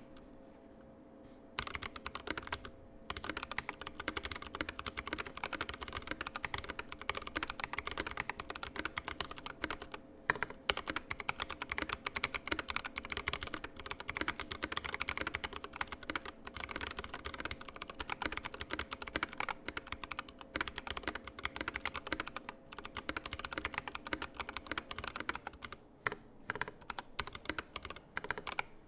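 Fast, continuous typing on a GK96s mechanical keyboard with stock Tecsee Purple Panda tactile switches and PBT keycaps: a dense patter of key clacks that begins about a second and a half in and pauses briefly twice.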